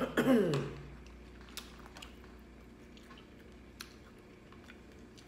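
A woman's voiced hum of enjoyment, falling steeply in pitch, in the first second. Then quiet chewing with a few faint clicks.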